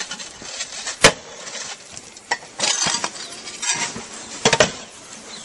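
Roof tiles knocking and clinking as they are lifted and handled, with a sharp knock about a second in and a quick double knock near the end, over a steady hiss.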